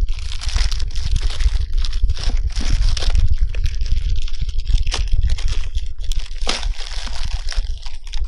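Plastic mailing package crinkling and ripping as a knife cuts and tears it open, a quick irregular series of rustles and rips, over a steady low rumble.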